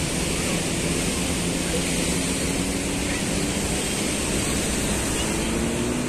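Rough sea with high waves breaking over concrete breakwater blocks: a continuous rush of surf and spray with a heavy low rumble.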